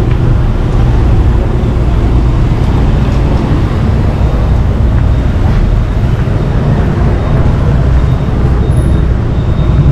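Steady street traffic noise of passing vehicles.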